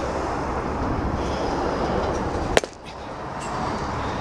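A single sharp crack of a pitched baseball striking, about two and a half seconds in, over a steady rushing background noise.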